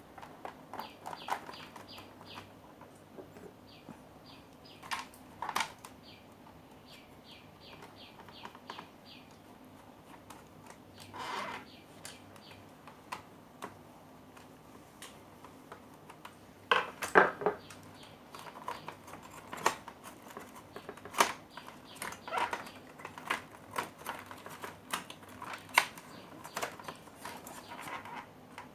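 Cloth wiping and handling of an LED TV's circuit board while dust is cleaned off: scattered rubs and clicks, the loudest about 17 s in. A bird chirps in quick short series in the background.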